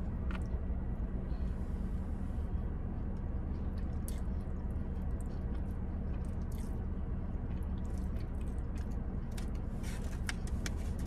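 Close-up eating sounds: biting and chewing soft bourbon chicken and rice, with small clicks and scrapes of a plastic fork, more frequent in the second half. A steady low hum runs underneath.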